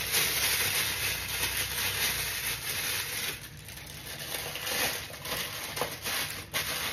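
A dense hissing, rustling noise with scattered small clicks, easing off for about a second just past the halfway point.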